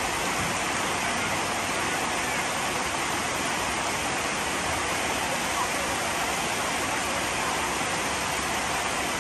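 A steady, even rushing noise with no clear rhythm or pitch.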